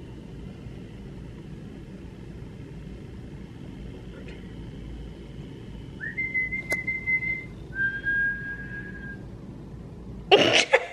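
Two long whistled notes, the first held higher and the second lower, over a steady low hum, with a single click between them; a voice starts speaking near the end.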